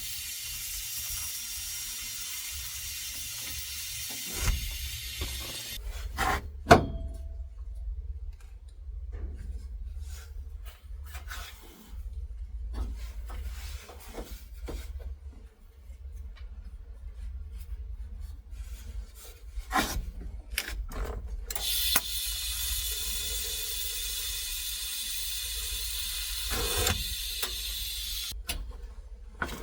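TIG welding arc hissing steadily as bar pieces are tacked in, in two spells of about six and seven seconds. Between the spells come scattered metal clicks and knocks, with one sharp clank about seven seconds in.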